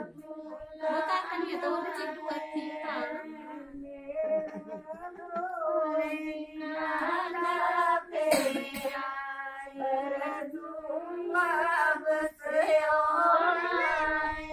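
Women singing a Himachali wedding song, in long held lines with short breaks between phrases.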